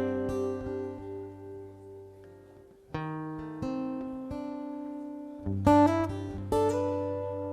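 Instrumental song intro on acoustic guitar: a few chords struck and left to ring out, fading between strikes.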